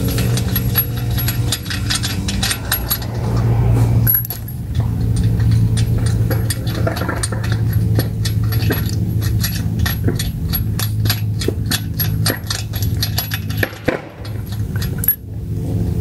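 Rapid metallic clicking and clinking as loosened steel lug nuts are spun off a car's wheel studs by hand, over a steady low hum.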